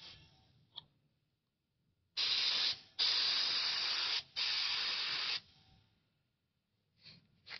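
Auarita H921 mini HVLP spray gun spraying in three bursts of hissing air as the trigger is pulled and released, the second the longest at over a second; a brief hiss sounds right at the start.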